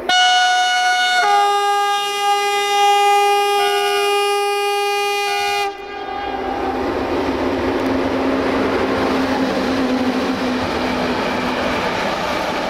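LE5100 (060-EA) electric locomotive sounding a long multi-tone horn blast for about six seconds, its chord shifting about a second in, then stopping abruptly. Then the container freight train passes with a steady rumble and rush of wheels on rail.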